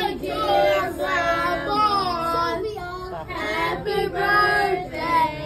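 A group of people singing a birthday song together, with held notes.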